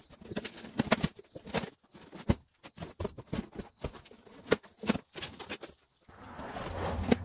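Cardboard shipping box and its packing being handled around a driveshaft, giving scattered taps, knocks and rustles. A longer scraping rustle comes about six seconds in.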